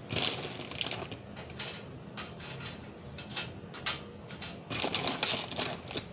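Small square butter pretzels being set down one by one on a textured metal baking sheet: irregular light clicks and taps, with a couple of short rustles near the start and about five seconds in.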